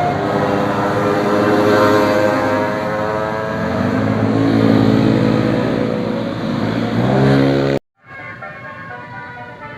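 A big bus engine running loudly, its pitch climbing as it accelerates about halfway through and again just before the sound cuts off abruptly near the end. A quieter engine hum follows the cut.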